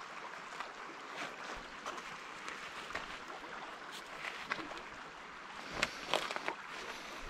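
Steady rush of a small river's flowing water, with a few faint clicks and rustles about six seconds in.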